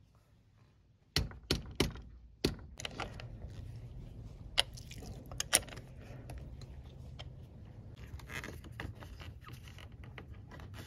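Four sharp knocks a little after a second in, a rubber mallet tapping a cable terminal down onto the battery post, then light metallic clicks and scraping as an 8mm wrench tightens the terminal clamp nut.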